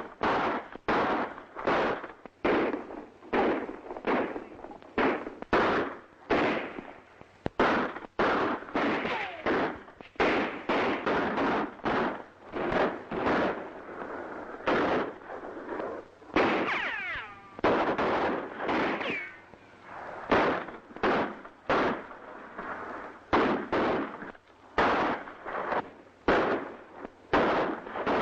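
Gunfight gunfire on an old western film soundtrack: echoing pistol and rifle shots, one or two a second, with no let-up. A whining glide sounds about two-thirds of the way through.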